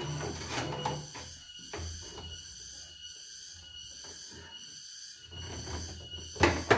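Plastic embroidery hoop being unclipped and slid off the carriage of a CNY E900 embroidery machine once its test stitch is done: scattered clicks and knocks, with the loudest clacks near the end, over a faint steady hum.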